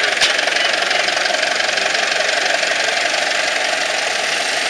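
Vintage farm tractor engines running as a Nuffield 460 and then a Fordson tractor drive slowly past, with a fast, even beat; a short click about a quarter of a second in.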